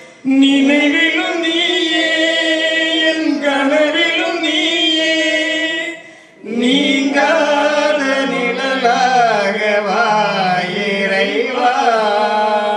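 Voices singing a church hymn in two long, held phrases, with a short break about six seconds in.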